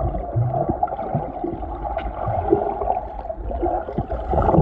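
Muffled underwater water noise heard through a submerged camera: sloshing and gurgling with scattered small knocks.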